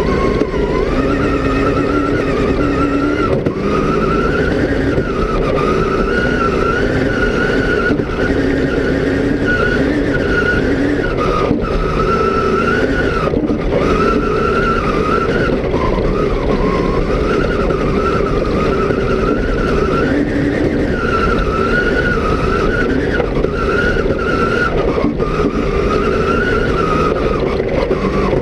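Rally car engine heard from inside the cabin at speed, its revs rising and falling as the driver works the throttle, with a few brief breaks in the note. A steady rumble of tyres on the dirt track runs underneath.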